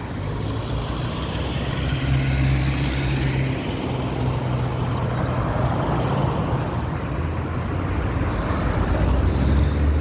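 Road traffic: motor vehicles running and passing, a steady low engine hum under a haze of tyre and road noise that swells and fades as they go by.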